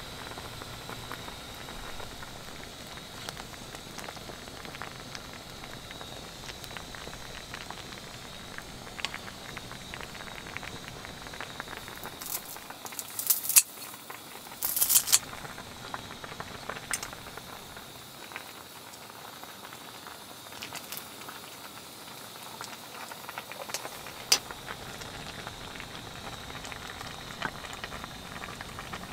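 Pot of spicy fish roe soup bubbling at a steady boil on a portable gas stove, with small crackles and pops. Around the middle come a few sharp snips of kitchen scissors cutting greens into the pot, the loudest sounds here, and there is one sharp click about three-quarters of the way through.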